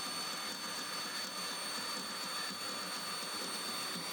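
A power tool running steadily, an even hiss with a faint high whine over it and no change in load.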